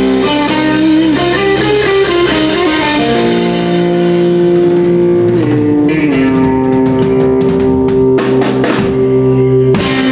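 Electric guitar and drum kit playing a live blues-rock song's closing flourish. The guitar holds long notes, bending them with vibrato over the first couple of seconds, while the drums build with rolling cymbal crashes. It all ends on one final hit near the end.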